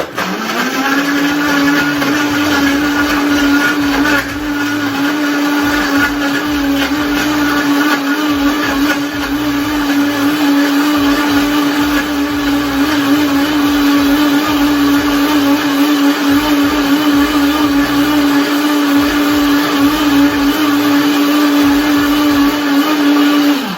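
Countertop blender running at one steady speed, blending ice, milk and coffee into an iced latte. Its motor spins up quickly at the start and cuts off near the end.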